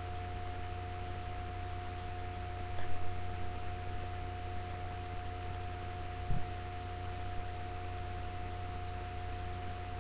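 Room tone through a webcam microphone: steady hiss and low hum with a thin, steady high tone, and a couple of soft low bumps around three and six seconds in.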